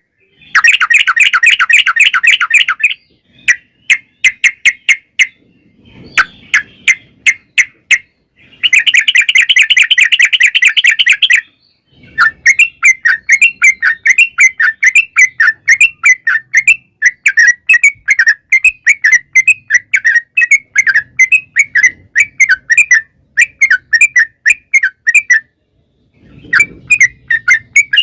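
Yellow-vented bulbul (trucukan) singing: two bursts of fast, dense trilling ('ropel'), then a long run of quick chattering notes.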